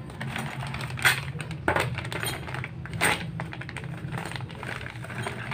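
Clear plastic bag crinkling and the steel sprockets of a mountain-bike cassette clinking as it is handled, with three sharper clinks about a second in, just before two seconds and about three seconds in.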